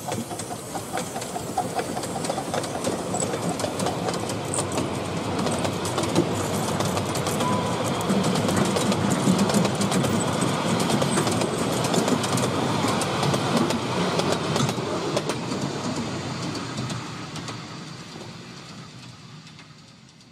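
A 10¼-inch gauge GCR D11-class 4-4-0 steam locomotive and its passenger coaches running past. The wheels click steadily over the rail joints, growing louder toward the middle and fading away near the end as the train moves off.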